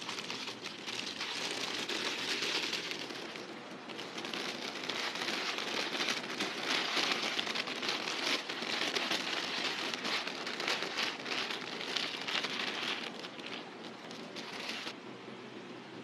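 Sheet of baking paper rustling and crinkling as it is handled, a dense continuous crackle that eases off about a second before the end.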